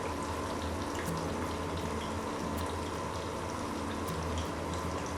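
Batter-coated potato wedges deep frying in hot oil: a steady sizzle with scattered small pops and crackles.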